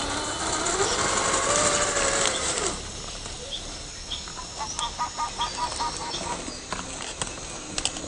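RC crawler's electric motor and geared drivetrain whining under throttle, the pitch rising and falling as it climbs, then cutting off a little over two seconds in. Afterwards the tyres scrape and click on rocks and twigs, and about halfway through an animal calls a quick run of short chirps.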